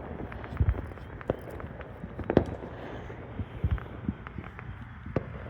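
Fireworks display: irregular booms and sharp cracks of aerial shells bursting, several to a second at times, some deep thuds among them.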